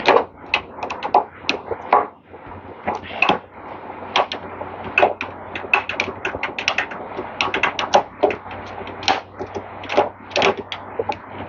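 Hand tools clicking and clinking against metal while the fasteners of a small engine's electric starter are undone: irregular sharp clicks, some in quick runs, over a faint steady hum.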